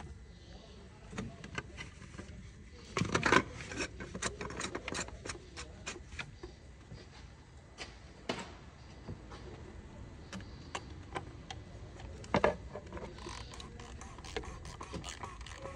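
Scattered clicks and knocks of metal hand tools on car parts, irregular rather than rhythmic, with a louder clatter about three seconds in and a sharp knock about twelve seconds in.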